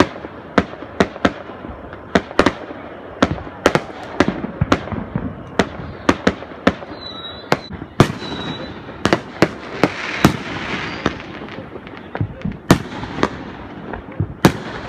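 Fireworks going off: a rapid, irregular series of sharp bangs, with a couple of brief high whistles in the middle.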